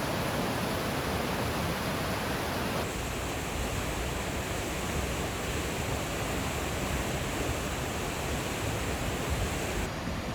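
Naena Falls, a large waterfall, giving a steady rushing noise of heavy falling water. The character of the noise changes abruptly about three seconds in and again near the end.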